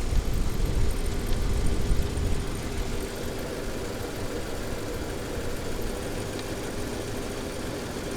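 Mercedes-Benz 560SEL's 5.6-litre V8 idling, a little louder for the first couple of seconds and then steady. It is a rough idle that the owner suspects comes from the spark plugs.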